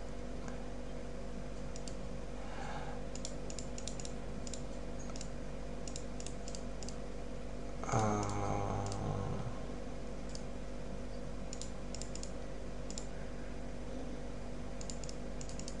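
Computer mouse clicking in quick clusters as the on-screen position arrow buttons are pressed repeatedly, over a steady electrical hum. About eight seconds in, a short low hum from a man's voice.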